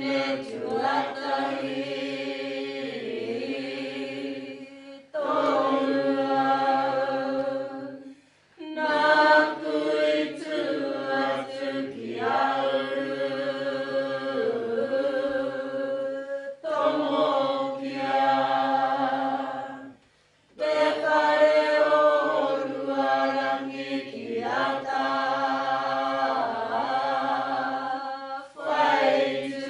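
A group of voices chanting a Māori mōteatea in long sung phrases of about four seconds each, with short breaks for breath between them.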